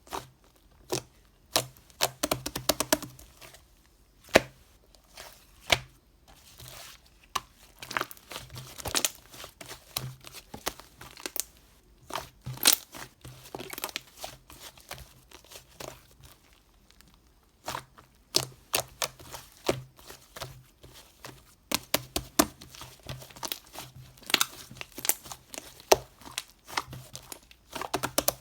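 Irregular crinkling and crackling of something being handled close up: many sharp clicks and short scratchy rustles, with a couple of brief lulls.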